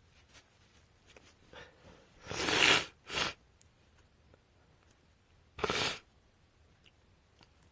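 A woman sneezing with a winter head cold: a loud sneeze about two and a half seconds in, with a short second burst right after it, then another sneeze about three seconds later.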